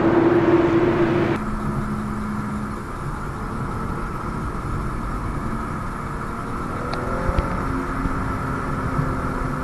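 A loud steady droning tone cuts off abruptly about a second and a half in. It gives way to a BMW M135i's turbocharged 3.0-litre straight-six heard from inside the cabin, running steadily while cruising, with a couple of faint ticks near the end.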